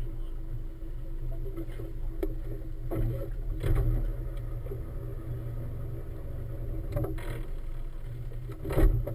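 Steady low rumble of a motorboat engine running at idle, with a few sharp knocks over it.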